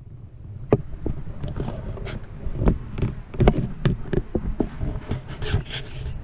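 Irregular knocks, clicks and rustling from the camera being handled and set down, over a steady low rumble of wind on the microphone.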